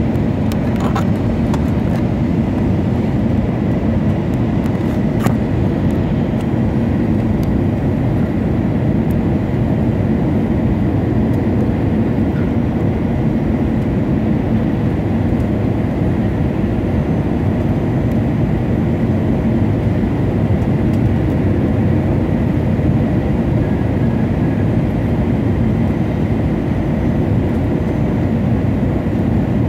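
Steady cabin noise of an Airbus A320 airliner on approach: engine and airflow rumble heard from inside the passenger cabin, with a faint steady high whine.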